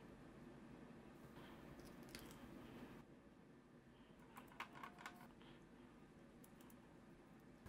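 Near silence: room tone, with a few faint light clicks and taps about halfway through as small craft tools are handled on a tabletop.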